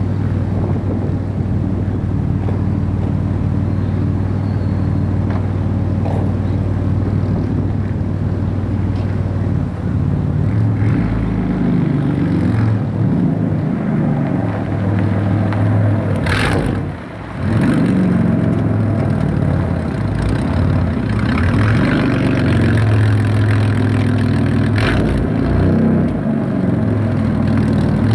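Straight-piped 3.8-litre V6 of a Camaro, with no muffler and no catalytic converter, idling with a steady low drone. About ten seconds in, the note starts to rise and fall with light throttle as the car reverses slowly toward the microphone, growing a little louder.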